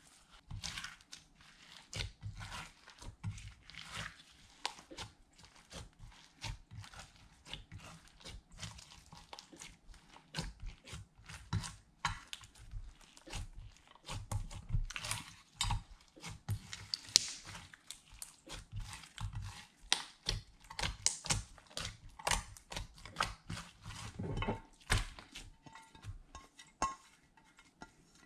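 Hands kneading, squishing and pulling glitter slime in a glass baking dish, making a dense run of irregular clicks and pops with soft low thumps.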